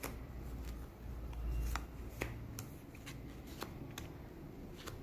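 Cardboard picture cards being handled and set down on a table: a scattering of light taps and clicks, with a low handling rumble about a second and a half in.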